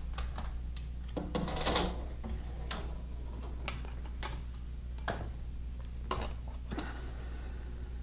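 Handling noise: scattered light clicks, taps and a brief rustle as a plastic keypad backplate and a cordless drill are picked up, over a steady low hum.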